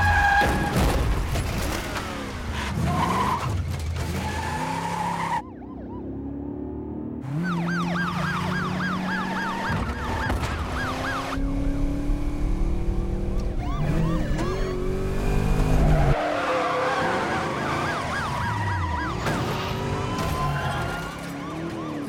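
A V8 muscle car's engine revving hard, its pitch climbing and dropping through the gears, with police sirens wailing and yelping behind it and tires skidding. The siren switches to a fast yelp for a few seconds in the middle.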